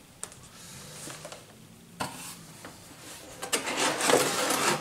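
Cardboard and plastic blister packaging rustling and scraping as toy packages are handled and lifted out of a cardboard box. It starts suddenly about halfway through and is loudest near the end, after a faint click near the start.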